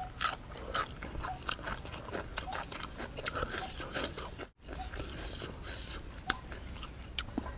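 A person chewing a mouthful of raw green vegetable close to the microphone: many short, crisp, wet crunching clicks. The sound cuts out for a split second about four and a half seconds in.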